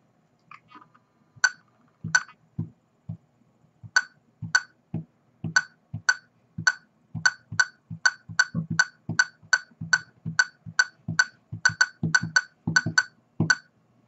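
Laser projection keyboard sounding its funny clinky electronic click for each keystroke, with the soft thump of fingertips on the wooden desk. A few isolated clicks at first, then a steady run of about three a second from about four seconds in.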